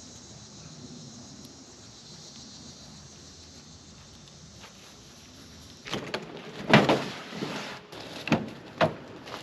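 Low steady outdoor background, then about six seconds in a run of sharp clunks and clicks, the loudest about a second later and two more near the end, the sound of the Barrett M107A1 .50 BMG rifle being handled.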